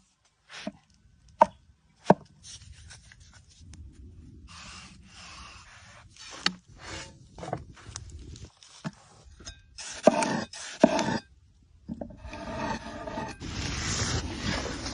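Kitchen food-preparation handling sounds: two sharp knocks in the first couple of seconds, then irregular scraping and rubbing, loudest in short bursts later on and in a longer stretch near the end.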